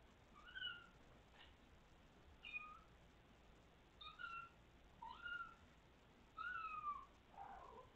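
Kitten mewing: a string of about five short, high-pitched mews spread a second or so apart, the one near the end longer and falling in pitch.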